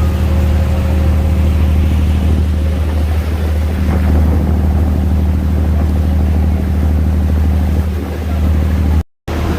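Tour boat's engine running with a steady low drone under a haze of wind and water noise as the boat cruises along. The sound cuts out briefly near the end.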